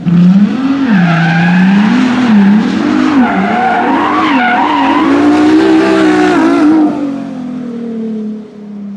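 A car skidding with its engine revving hard, the pitch wavering up and down with tyre squeal. The sound drops away about seven seconds in, leaving a quieter steady tone.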